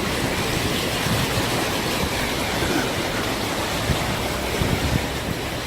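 Steady rushing noise of floodwater.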